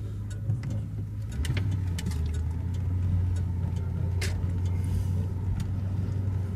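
The 1993 Lincoln Town Car's 4.6-litre V8 and the moving car, heard from inside the cabin as a steady low drone that grows louder about a second and a half in as the car picks up speed. A few light clicks are scattered through it.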